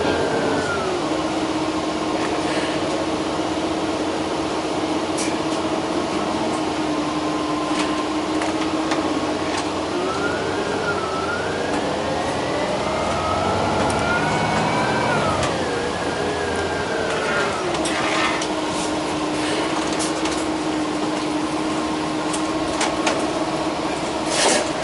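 Interior of a New Flyer XD60 articulated city bus: a steady engine hum with a steady low tone, then about ten seconds in the bus accelerates and the drivetrain whine rises in pitch for about five seconds before falling away as it eases off, settling back to the steady hum. A short loud clatter near the end.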